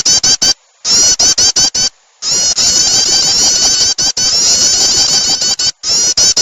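Prinia (prenjak) calls played as a bird-lure track: loud, rapid series of sharp down-slurred chirps, about six a second. They come in short bursts with a longer unbroken run in the middle.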